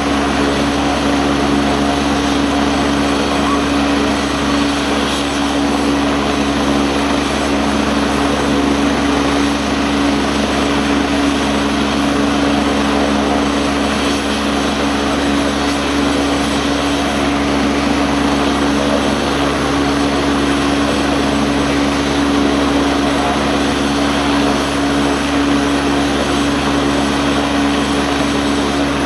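Twin-turbine AgustaWestland A109 helicopter running on the ground with its rotor turning: a steady, loud turbine and rotor rush over a constant low hum that does not change.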